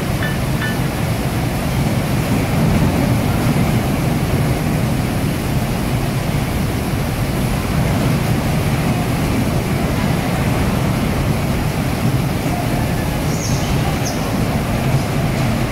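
Electric bumper cars driving around the rink: a steady low rumble of motors and wheels on the floor.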